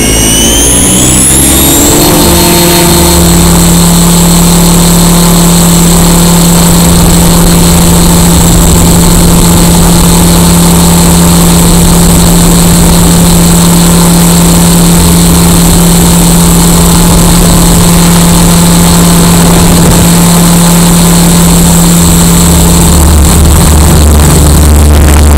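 XLPower 520 RC helicopter heard from its onboard camera: the motor and rotor whine rise in pitch as the head spools up over the first two seconds, then hold a steady, loud drone with a high whine through the flight. Heavier low wind rumble comes in near the end.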